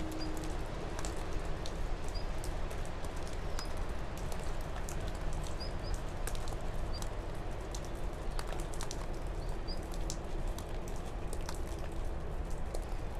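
Steady background noise with a low rumble throughout, scattered small clicks and a few short, high chirps every second or two.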